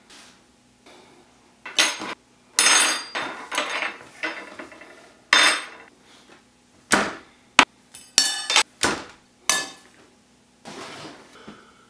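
Metal spoon clinking and scraping against a bowl: a dozen or so irregular sharp clinks, some with a brief metallic ring, and a few short scrapes.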